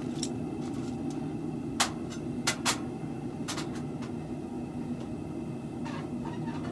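A steady low mechanical hum, with a few sharp clicks or knocks about two to three and a half seconds in.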